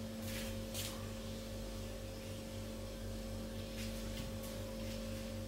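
Steady low electrical hum of a few fixed tones, with a few faint brief swishes.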